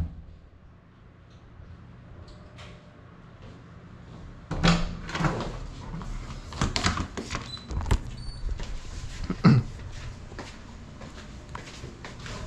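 Scattered knocks, clicks and rattles of the crashed Cinelog 35 FPV drone being handled and carried, its motors silent. The knocks start about four seconds in, with one sharper knock near the end.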